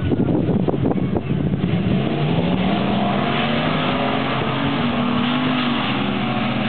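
Two pickup truck engines at full throttle in a mud drag race. The sound starts rough and crackly, then the engine pitch climbs and holds high.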